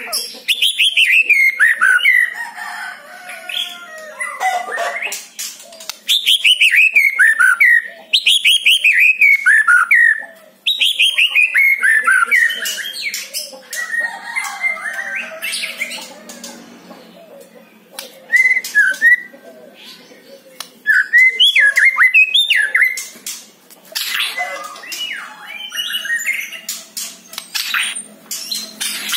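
White-rumped shama singing: several loud phrases of quick, falling notes in the first half, then shorter chirps broken by sharp clicks.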